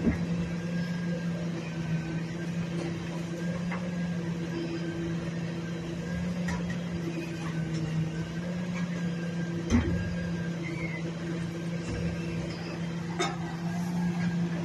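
Grapple-loader truck's diesel engine running steadily at a constant speed, a low hum, with a few sharp knocks and clatters from the loading work, the loudest about ten seconds in.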